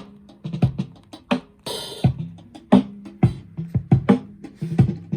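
Drum-heavy music with a steady beat and a bass line, played from a record on a Sansui SR-1050C turntable through a pair of studio monitor speakers.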